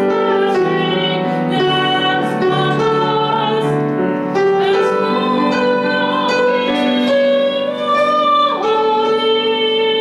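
A woman singing solo with piano accompaniment, holding long notes that change every second or so, with a downward slide in the voice near the end.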